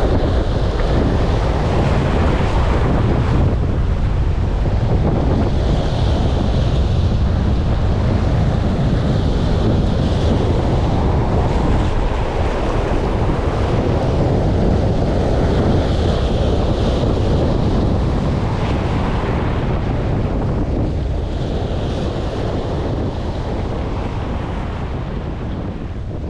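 Heavy surf breaking and washing over shore rocks, the wash coming in surges every few seconds, with strong wind buffeting the microphone.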